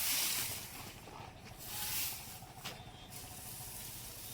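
Indian cobra hissing: two long breathy hisses, one at the start and one about two seconds in.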